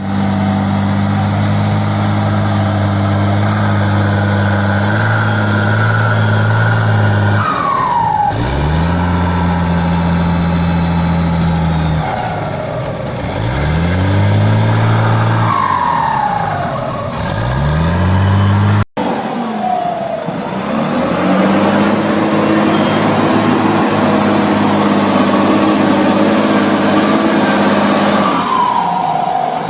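Wheel loader's turbocharged diesel engine, its turbo boost turned up, revved up and down again and again, with a turbo whistle that falls in pitch as the revs drop. The sound drops out for an instant at a splice a little past the middle.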